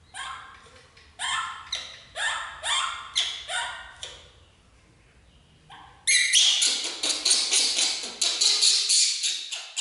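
Baby macaque's short, shrill squeaking calls, each rising in pitch, repeated about twice a second. After a brief pause, about six seconds in, they become a dense, continuous run of shrill squeals.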